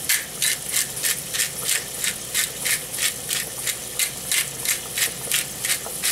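Pepper mill grinding black pepper over a pan, a steady run of grinding strokes at about three a second.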